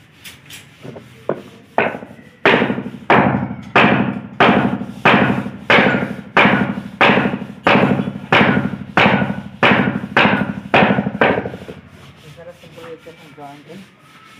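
Hammer blows on a wooden block held against a 6-inch PVC pipe, driving the pipe home into its solvent-cemented socket joint. About fifteen evenly spaced strikes, roughly one and a half a second, starting about two seconds in and stopping a few seconds before the end.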